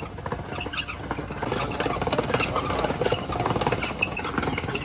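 Hand-cranked ice cream churn being turned: the rusty metal gear head clatters in a fast, uneven rattle as the canister spins in its packing of ice and salt, getting louder about a second and a half in.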